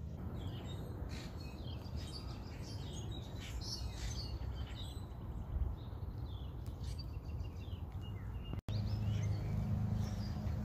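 Small birds chirping and singing in a scattered series of short calls over a low, even background rumble. Near the end the bird sound cuts off abruptly and a steady low hum follows.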